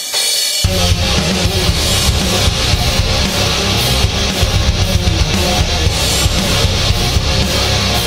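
Loud rock outro music with a drum kit and electric guitar. The bass and drums come in a little over half a second in.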